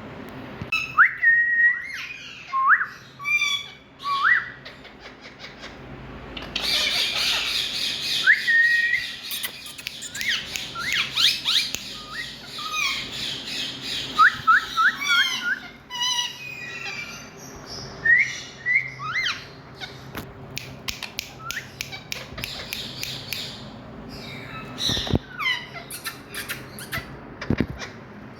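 Indian ringneck parakeet calling: short rising whistles and squawks, with a long stretch of harsh, rapid chattering from about six to twelve seconds in, then scattered chirps and whistles.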